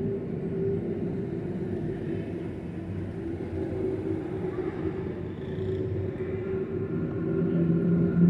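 Motorcycle engine running steadily with a low, even hum, growing a little louder near the end.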